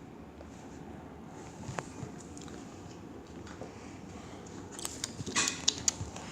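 A quiet steady background, then a quick run of sharp clicks and knocks about five seconds in.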